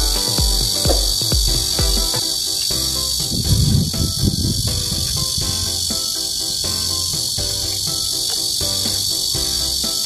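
A steady, shrill insect chorus buzzes high and unbroken. Background music with a regular beat plays underneath it.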